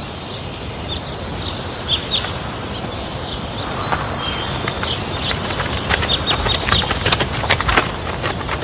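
Outdoor ambience: birds chirping over a steady background hiss, with a run of light clicks and taps in the second half.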